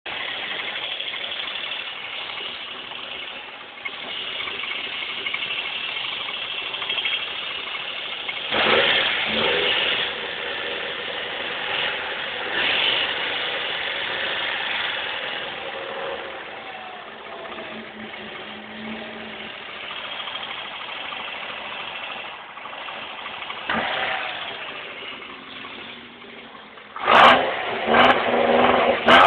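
Car engine running, heard close up in the engine bay, with a steady mechanical noise that swells louder about 9 and 13 seconds in. Near the end there are several loud knocks.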